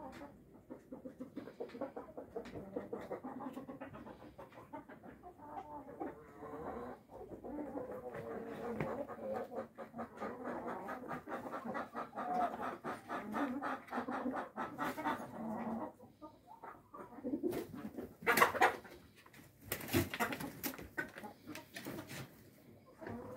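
Brahma roosters clucking in a long run of rapid pulses, with a few louder, sharper sounds near the end.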